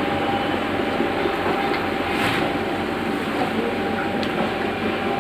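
Screw conveyor running: a steady mechanical rumble and rattle under a constant whine, with a few light clicks.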